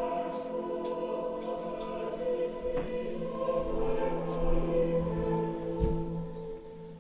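Voices singing a slow liturgical chant in long held notes, the pitch moving to new notes about three and four seconds in.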